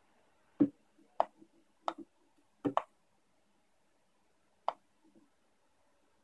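Handling noise from a small plastic Bluetooth speaker being turned in the hand and set against a wooden desk: six sharp clicks and knocks, two of them close together about two and a half seconds in, and the first the loudest.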